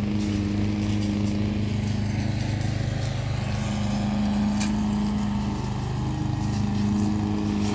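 Petrol engines of backpack brush cutters running steadily as grass is cut, a continuous hum that wavers slightly in pitch.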